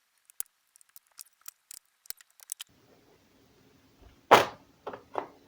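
The plastic back cover of an HP Envy laptop being pried off with a plastic pry tool, its clips clicking and snapping loose. A quick run of small sharp clicks comes first, then one loud snap about four seconds in, followed by two softer ones.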